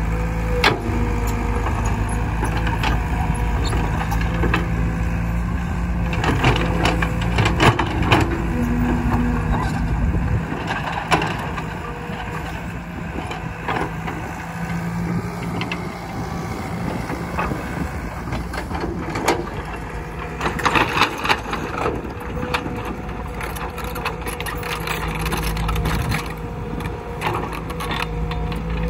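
Caterpillar crawler excavator's diesel engine running steadily as the machine digs, with scattered knocks and scrapes of the bucket and soil clods. The deep engine rumble eases about ten seconds in.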